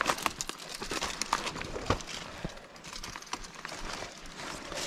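Footsteps crunching through dry leaf litter and twigs on a forest floor, an irregular string of sharp crackles and snaps.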